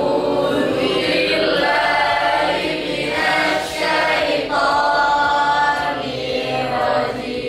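A class of students chanting a prayer together in unison, their voices drawn out on long held notes.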